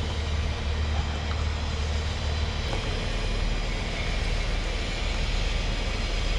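Steady low rumble of city background noise: distant traffic and machinery, a deep hum that shifts slightly lower about two and a half seconds in.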